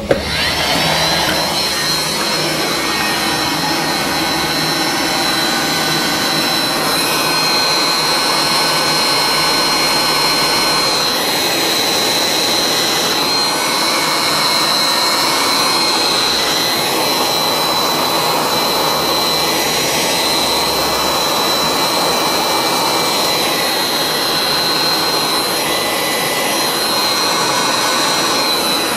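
Electric heat gun running steadily while shrinking heat-shrink tubing over a soldered wire splice: a constant rush of air with a thin, steady high whine over it.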